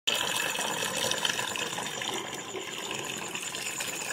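Thin stream of tap water pouring into a plastic bucket, filling it: a steady splashing rush.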